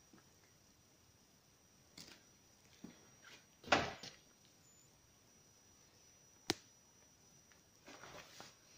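A few scattered soft knocks and rustles, with one louder thump about four seconds in and a single sharp click a few seconds later.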